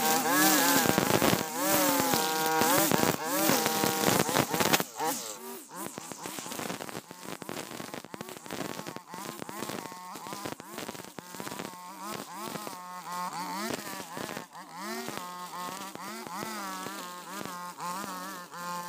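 Husqvarna 542RBS backpack brush cutter's two-stroke engine running under load while cutting grass, its pitch rising and falling again and again as the throttle is worked. About five seconds in it drops abruptly to a quieter level and goes on revving up and down.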